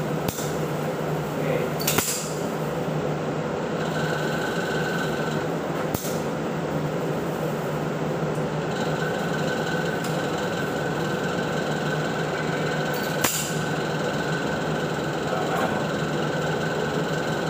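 Handgun shots at an indoor range: about four sharp cracks spaced several seconds apart, over the steady hum of a ventilation blower.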